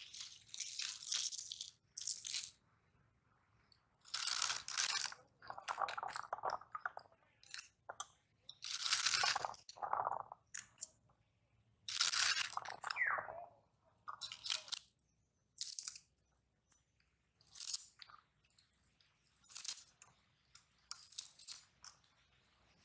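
Spring onion stalks sliced on an upright boti blade: crisp crunching cuts in short irregular bursts with brief pauses between.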